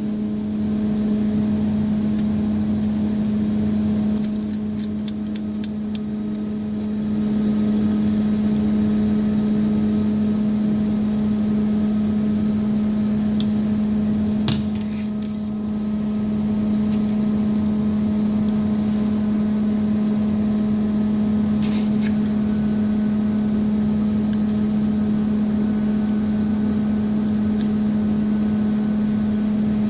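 Small metal parts clinking and rattling as a fuel pump hanger and its wiring are handled: a quick run of small jingling clicks about four to seven seconds in, a single sharp knock around fifteen seconds, and a few light ticks later. Under it runs a loud, steady hum at one constant pitch.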